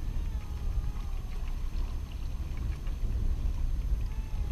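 Wind buffeting the microphone over waves washing against shoreline rocks: a steady low rumble.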